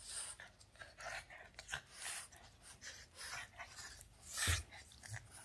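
A Boston terrier breathing hard in quick, breathy huffs as it play-bites a hand, with a louder huff and a low thump about four and a half seconds in.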